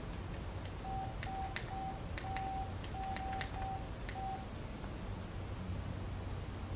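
Morse-code-style tone: a single steady beep, keyed on and off in seven short and longer pulses between about one and four and a half seconds in, with faint clicks among them.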